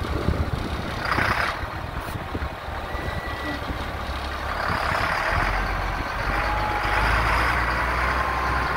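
Diesel engine of a 1999 Kenworth single-axle grain truck idling with a steady low hum that grows stronger about halfway through, under a hiss that swells a few times.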